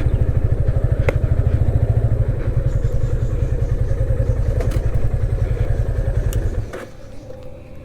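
Motorcycle engine idling with a steady, even low beat, then cutting off abruptly near the end as it is switched off.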